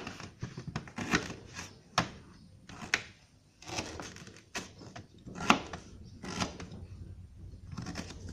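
Knife cutting fresh ginger root on a cutting board: irregular sharp knocks, roughly one a second, with lighter clicks between.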